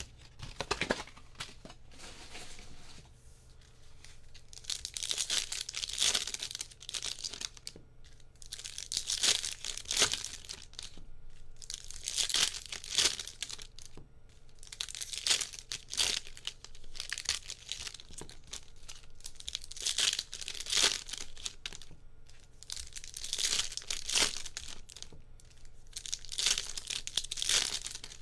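Foil trading-card pack wrappers being torn open and crinkled, in repeated bursts every few seconds.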